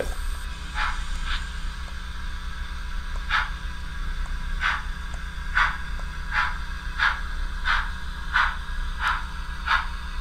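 Tsunami2 DCC sound decoder in a model 4-4-0 steam locomotive playing a light steam exhaust chuff through its small speaker. Soft chuffs come about every half to two-thirds of a second and quicken slightly as the model starts to move, over a steady low hum.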